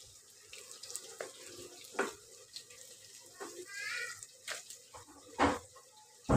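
Hot oil sizzling faintly in a frying pan as fried spinach-coated chicken rolls are lifted out with a wooden spatula. Several sharp knocks of the spatula against the pan sound over it, the loudest about five and a half seconds in and right at the end.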